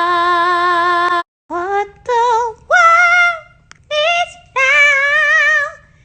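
A woman singing unaccompanied: one long held note with a slight waver that stops about a second in, then short wordless phrases that slide up into each note, separated by brief pauses.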